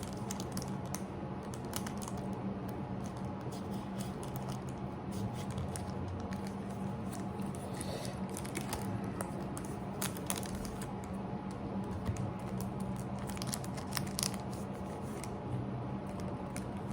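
Pokémon card booster packs and cards being handled: crinkling of the foil wrapper, some tearing, and many light scattered clicks and flicks as cards are shuffled and set down, over a steady low hum.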